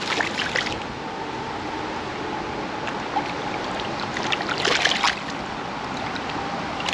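Creek water running steadily, with two short bursts of splashing, one right at the start and one about five seconds in.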